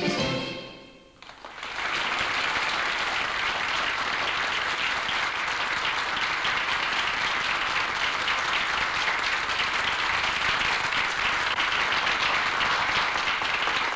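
Dance music ends on a last chord that dies away within about a second, then an audience applauds steadily.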